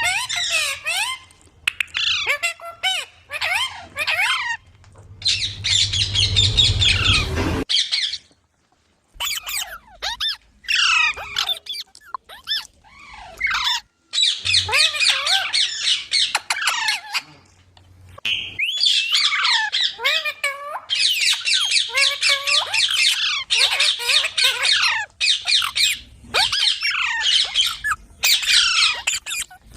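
Green parrot screeching and squawking over and over, harsh calls mixed with quick gliding notes, with short breaks about 8 seconds in and again about 14 seconds in.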